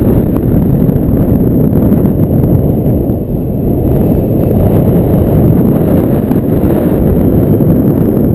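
Loud, steady wind buffeting the microphone of a paraglider pilot's body-mounted camera, the airflow of flight in strong, gusty wind, with a faint steady high tone above it.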